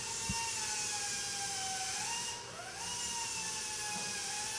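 A steady high whine like a small electric motor running, wavering slowly in pitch; about halfway through it briefly drops in level and then glides back up in pitch.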